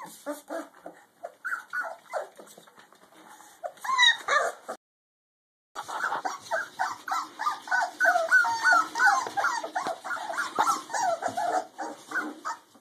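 Several puppies whining and yipping together, many short high cries overlapping, as hungry puppies do. The sound cuts out completely for about a second a little before halfway, then the cries come back denser and louder.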